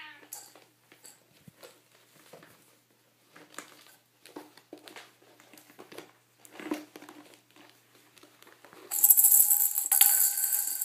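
Light scattered taps and scuffles on a tile floor, then, about nine seconds in, a cat's rattle toy ball jangling loudly as it is shaken and sent rolling across the tiles.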